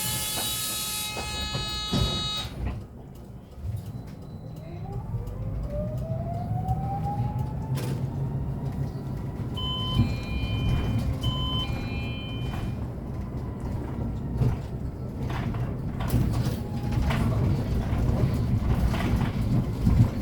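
Cabin sound of a Hyundai Elec City Town electric bus under way: the electric drive's whine rises in pitch over a few seconds as the bus gathers speed, then holds steady over low road rumble. A set of tones fades out in the first couple of seconds, two short beeps come about halfway, and scattered rattles and clicks follow near the end.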